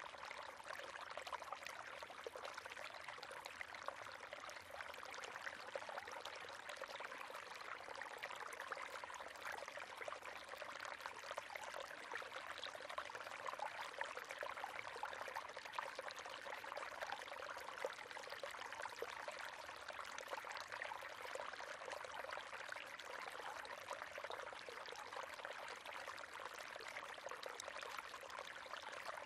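River water flowing and splashing steadily over stones, a continuous bright burble with many small splashes.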